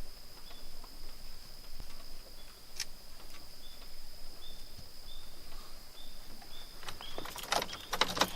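Quiet outdoor ambience with a steady high insect drone and a run of short high chirps in the second half. The drone stops about seven seconds in, and a few clicks and knocks follow.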